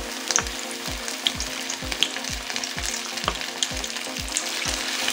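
Battered chicken lollipops deep-frying in hot oil: steady sizzling and bubbling with scattered sharp crackles and pops as more pieces are lowered into the oil.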